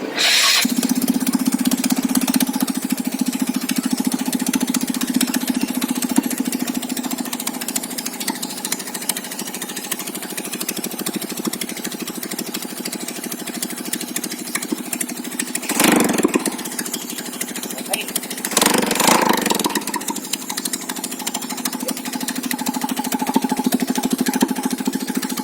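Rebuilt Yamaha Nouvo scooter engine being test-run: it starts just after the beginning and runs steadily with a fast, even beat, getting briefly louder twice about two thirds of the way through.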